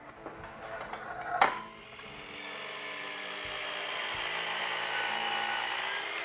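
Festool KAPEX KS 120 sliding compound miter saw running and cutting through crown molding: a sharp click about a second and a half in, then the saw's whine and cutting noise swelling and easing off near the end.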